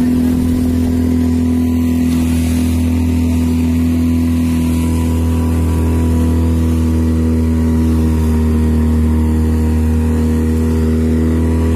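A fishing boat's engine running at a steady speed, an unchanging drone.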